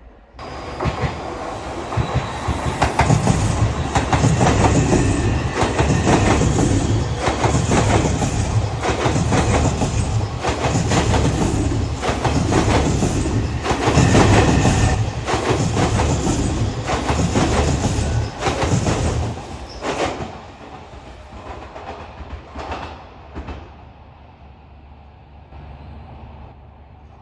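Odakyu Line electric commuter train passing close by, its wheels clattering over the rail joints. The sound comes up quickly near the start, stays loud for about eighteen seconds, then fades away as the train leaves.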